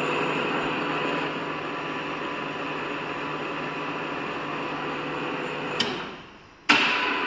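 BFW No. 1.5 milling machine running with a steady hum. Near six seconds there is a click and the sound dies away, then it comes back abruptly about a second later.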